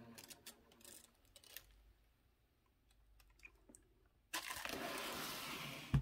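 Faint scattered clicks and taps as a leather boat shoe is handled in its cardboard box. About four seconds in comes a sudden steady rustle of tissue paper as the shoe is moved out of the box.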